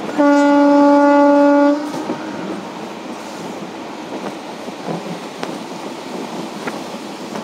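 A WAP4 electric locomotive's horn sounds one steady, single-pitched blast of about a second and a half. After it comes the steady running noise of the train's coach, with an occasional faint rail click.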